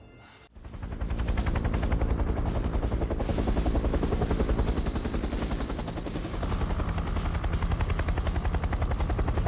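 Large Sikorsky Super Stallion-type helicopter running close by: rapid, even rotor-blade thumping over a steady turbine drone. It comes in suddenly about half a second in.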